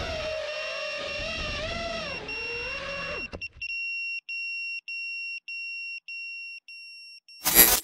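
Small FPV quadcopter's electric motors whining, the pitch rising and falling, until they cut off about three seconds in. Then a steady high electronic beep repeats about two and a half times a second and fades away, and a loud burst of sound comes in near the end.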